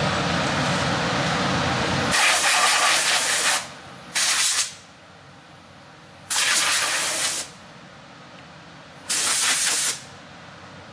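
A steady running noise that stops about two seconds in, followed by four short blasts of compressed air from a blowgun, each hissing on and off sharply, the first the longest.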